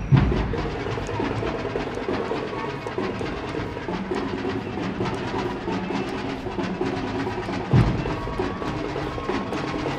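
Parade music: drums and percussion clicking over held musical tones, with one loud low thump near the end.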